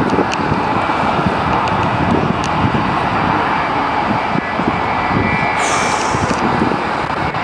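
A steady, loud engine drone with no clear pitch, like a passing aircraft overhead. A few faint clicks and a short hiss come about six seconds in.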